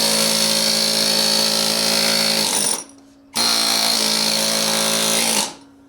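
Pneumatic air hammer with a flat chisel running in two long bursts with a short pause between, driving against a mower tire's bead to break it loose from the rim.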